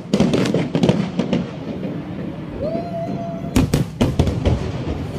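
Fireworks bursting: a quick run of crackling reports, then several loud bangs a little past halfway. A brief held tone sounds just before the bangs.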